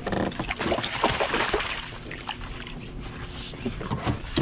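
Water splashing and sloshing beside a kayak as a hooked catfish is brought in, with a few small knocks and clicks. The splashing is strongest in the first couple of seconds, then eases.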